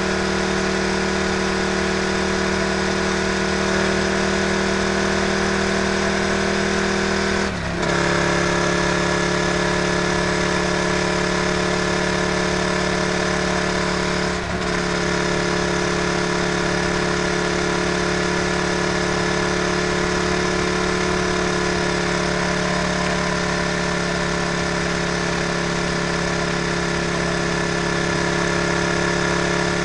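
Motorcycle engine running steadily at cruising speed, with wind and road noise on the exposed camera. The engine note breaks briefly twice, about seven and a half and fourteen and a half seconds in.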